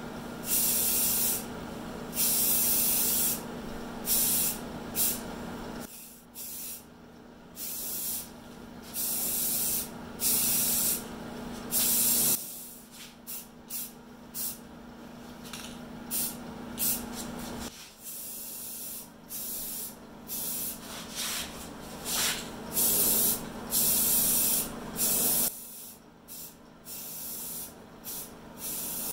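Primer sealer being sprayed onto a fiberglass tractor body in many short bursts of hiss, each about half a second to a second long. A steady low hum sits under the spraying and stops and starts abruptly.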